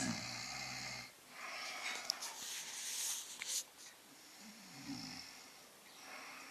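A sleeper snoring: a low rattling snore at the start, then a long breathy rush of air, then another low snore about five seconds in.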